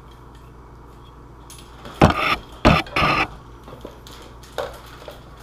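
A heavy-duty clamp being handled and fitted onto a glued seam: three sharp clicks with short clattering noise about two to three seconds in, then a lighter tap.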